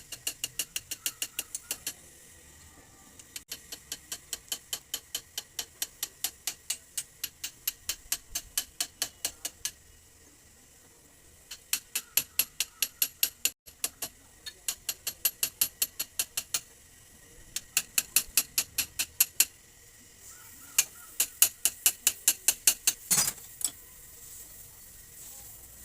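Ratchet tool clicking in repeated runs of a few seconds, about four even clicks a second, with short pauses between runs. This is work on a motorcycle rear shock absorber. A single sharper knock comes near the end.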